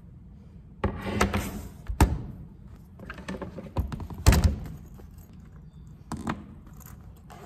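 An iPad in a folding cover and a MacBook handled and set down on a wooden desk: a string of knocks and taps, the loudest about two seconds in and just past four seconds in.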